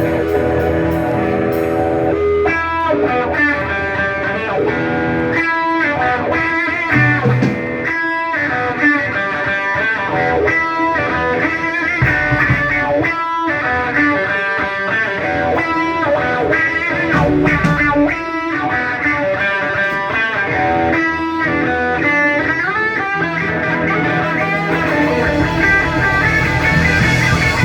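Band playing rock music, led by an electric guitar playing quick runs of notes.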